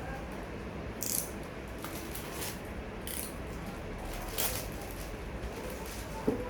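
Air purifier filter and casing being handled and pressed into place: a few short plastic scrapes and rustles, then a sharp knock near the end.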